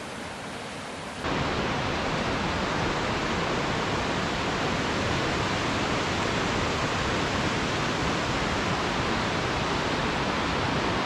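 Baspa River's fast whitewater rushing over rocks, a steady noise of water. About a second in it turns louder and fuller.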